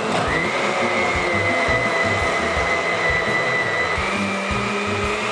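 Hamilton Beach countertop blender running steadily, puréeing a thick bean mixture. Its motor whine steps up slightly in pitch about four seconds in.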